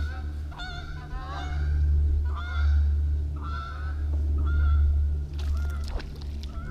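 Geese honking repeatedly, a string of short nasal calls over a steady low rumble, with a brief cluster of sharp clicks near the end.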